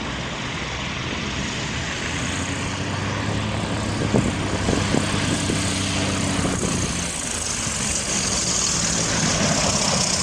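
Propeller aircraft engine running steadily under a rushing, wind-like noise, with a few short clicks partway through; a hiss grows louder near the end.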